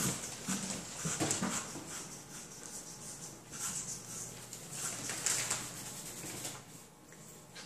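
Electric hair clippers buzzing as they are run through short hair on a head, with repeated scratchy strokes of the blades through the hair. The buzz stops near the end.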